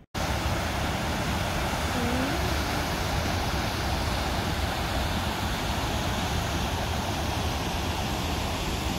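Water rushing steadily through a concrete dam spillway and over the rocks below it.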